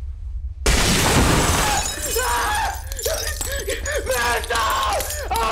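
A sudden loud crash of shattering glass about half a second in, with shards raining down for about a second. It is followed by a voice crying out in quick, repeated rising-and-falling wails.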